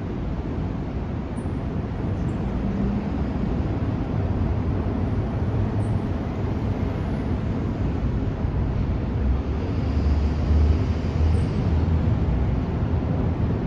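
Steady low rumbling outdoor noise with no distinct event, slowly getting louder and loudest a few seconds before the end.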